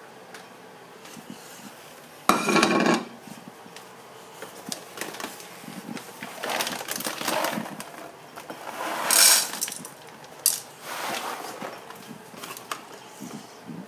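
Dry cat food rattling in a plastic food bowl, in several short bursts of clatter. The loudest come suddenly about two seconds in and again about nine seconds in.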